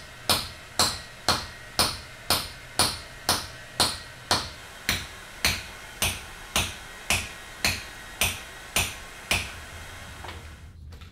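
A hammer strikes a steel chisel held against a large rock, about two sharp, ringing metallic blows a second, chipping off the rock's outer surface. The blows stop about nine seconds in.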